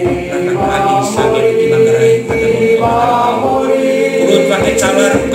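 Voices singing together without accompaniment, with long held notes.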